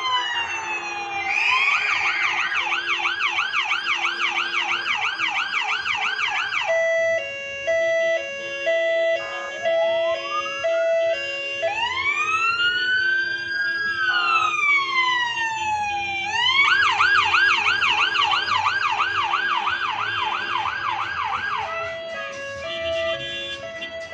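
Police car siren cycling through its patterns: fast repeated yelp sweeps, a slow rising and falling wail around the middle, and stretches of quick stepped, alternating tones between them.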